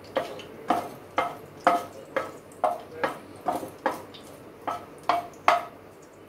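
A spoon stirring whole cloves and cardamom in hot ghee in a granite-coated pot, knocking against the pot's side with a short ringing clink about twice a second; the clinks stop near the end.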